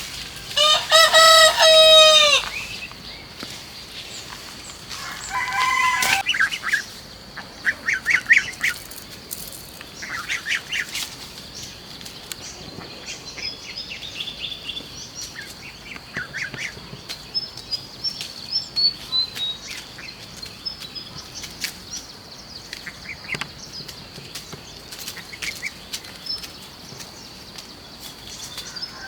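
A rooster crows once, loudly, about a second in. After that come a shorter second call and scattered short clucks and calls from chickens, with a few small bird chirps, over a steady high-pitched drone.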